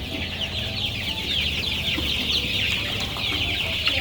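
A flock of eight-week-old chickens peeping and cheeping, many short falling calls overlapping in a continuous chorus, over a low steady hum.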